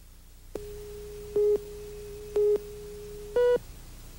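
Videotape countdown leader: a steady low tone with three short, louder beeps a second apart, the last one a little higher in pitch, after which the tone cuts off.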